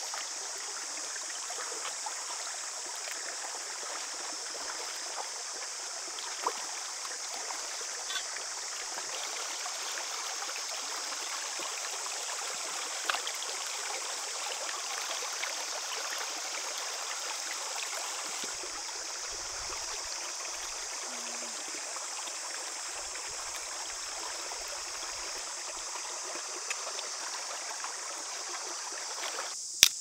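Shallow stream running steadily over rocks, with a few faint clicks and knocks. The water sound cuts off abruptly just before the end.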